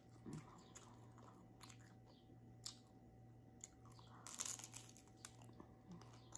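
Faint chewing and crunching of a crisp fried tostada shell, with scattered small crackles and a louder crunch of a bite a little past four seconds in.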